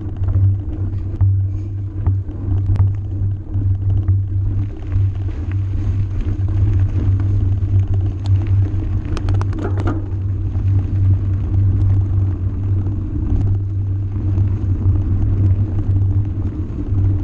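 Steady low rumble of a ride along a loose gravel dirt track, with scattered knocks and clicks from stones and bumps under the wheels. A denser rattle comes about nine to ten seconds in.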